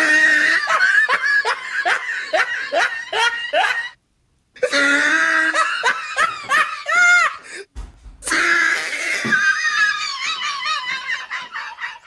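A person laughing hard in rapid, high-pitched "ha-ha-ha" pulses, about three a second. It comes in three long bouts that break off abruptly twice.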